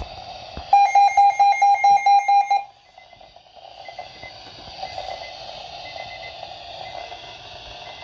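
Midland ER210 emergency radio sounding its weather-alert alarm: a rapid run of loud, high electronic beeps, about five a second for roughly two seconds, marking the receipt of a weather alert. It then falls back to a quieter steady radio hiss.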